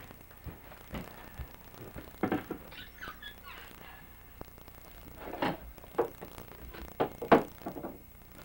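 Irregular thumps and knocks: a handful of short, separate impacts scattered over several seconds, the loudest about seven seconds in.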